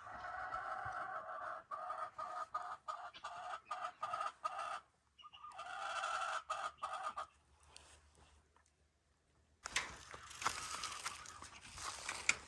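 Chickens calling in long, broken, drawn-out clucks for the first seven seconds or so. After a short lull, footsteps start crunching through snow near the end.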